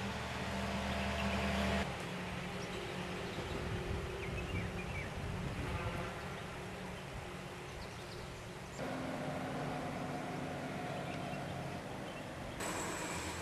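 A steady engine hum with low, even tones, which changes abruptly about two seconds in and again about nine seconds in. A few faint, short high chirps sound above it.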